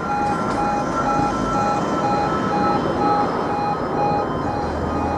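E2S level crossing warning alarm sounding as the crossing activates: a tone pulsing about twice a second alongside a steady higher tone, over road traffic.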